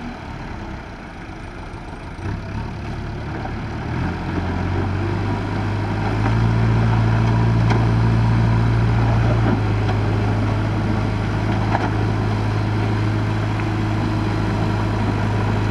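JCB backhoe loader's diesel engine running steadily as the machine works its loader bucket through mud. The engine grows louder and works harder about six seconds in, then eases a little a few seconds later.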